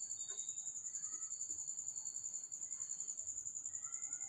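Cricket chirping steadily in the background: one high-pitched, fast, evenly pulsing trill, with a few faint thin whistling tones beneath it.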